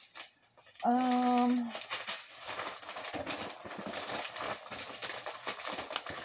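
Rustling and small knocks of packaged food and cans being rummaged through and moved about in a bucket. About a second in comes one short, steady, hum-like call.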